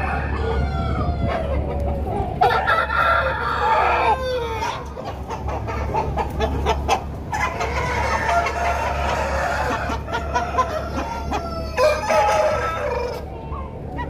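A flock of chickens in a poultry shed, many clucking and calling at once in overlapping short calls, over a steady low hum.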